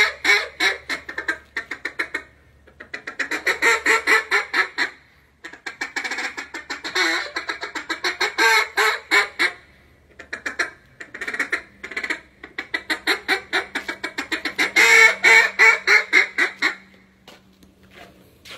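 Hand-blown duck call played as a competition calling routine: several runs of rapid, clipped quacks separated by short pauses. The calling stops about a second and a half before the end.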